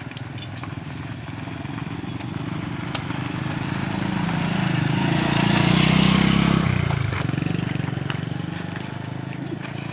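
Small motor scooter riding past close by, its engine getting steadily louder to a peak about six seconds in, then dropping in pitch and fading away.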